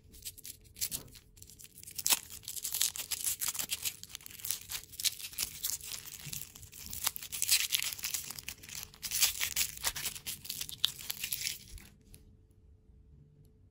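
Plastic lollipop wrapper being crinkled and torn off by hand, a dense run of irregular crackles that stops about a second before the end.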